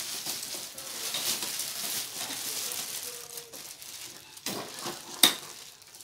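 A thin clear plastic bag crinkling and rustling as it is pulled off a printer, then a single sharp knock near the end.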